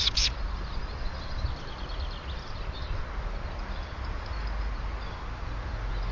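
Small bird chirping a few times right at the start, then faint birdsong in the background, over a steady low rumble.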